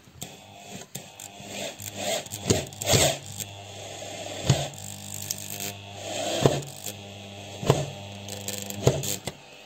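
Electric drill running slowly as a screwdriver, driving a short self-tapping screw through a metal clip into a PVC window frame: a steady low motor hum with several sharp clicks along the way.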